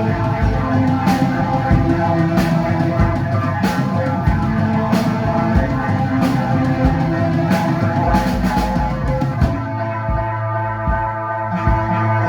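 Rock band playing live: drum kit with cymbal crashes over guitar chords. About three quarters of the way through, the cymbals stop and sustained notes ring on with a lighter low beat.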